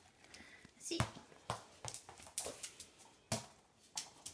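A dog's claws clicking and tapping on a stone tile floor as it moves about, a dozen or so irregular sharp clicks.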